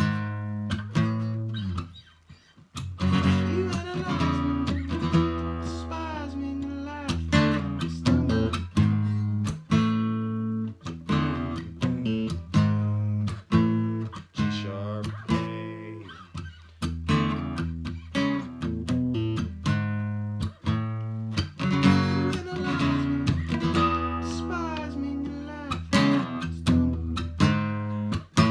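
Acoustic guitar strummed through a progression of barre chords, strum after strum with the chords ringing between changes. It breaks off briefly about two seconds in.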